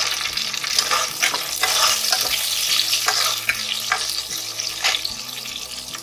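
Chopped onions and bay leaves sizzling in hot oil in a stainless steel pot, stirred with a spatula that scrapes across the pan bottom several times.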